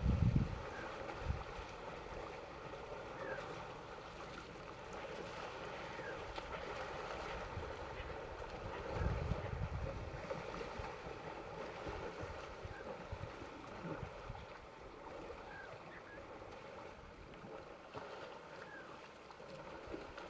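Outdoor bush ambience: wind gusting on the microphone in low rumbles, strongest at the start and about halfway through, over a steady hiss. A few short, rising bird chirps come through now and then.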